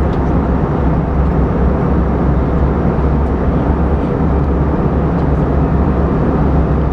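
Steady cabin noise of an Airbus A320-232 in descent, heard inside the cabin beside its IAE V2500 engine: an even, deep rumble of engine and rushing air.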